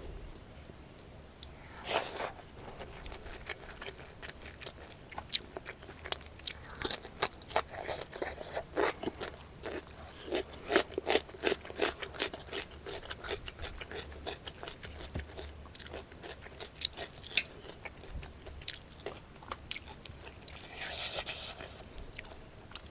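Close-miked crunching and chewing of crisp food in the mouth: a run of sharp crackles and bites, with louder crunches about two seconds in and near the end.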